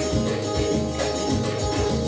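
Belly dance music with a steady drum beat and sustained melody.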